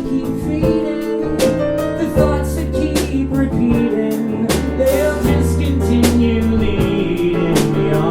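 Live band of piano, bass and drum kit playing a show tune without vocals: piano chords over held bass notes, with drum and cymbal hits on a steady beat.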